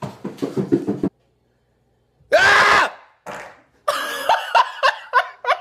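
Human vocal sounds: a short, loud scream about two and a half seconds in, then a run of quick repeated vocal bursts, about three a second, that goes on to the end.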